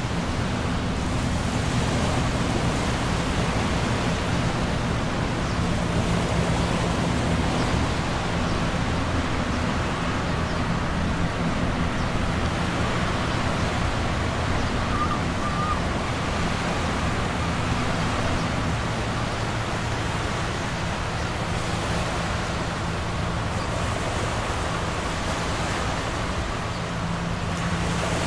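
Steady low diesel drone of a tugboat and a large container ship passing close by, under a constant rush of wind and river water.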